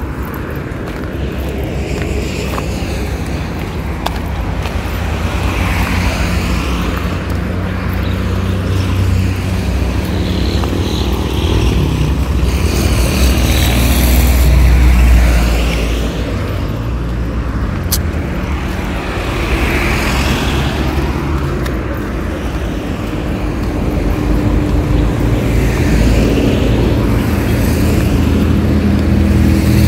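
Road traffic on a multi-lane highway: cars and vans passing one after another, each swelling and fading under a continuous low rumble, the loudest pass about halfway through.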